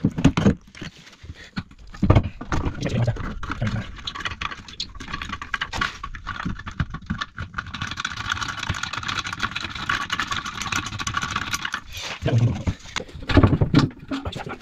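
Clicks, knocks and rattles of hands and tools working on toilet cistern fittings and pipework, with a steady, fast rattling noise for about four seconds in the second half.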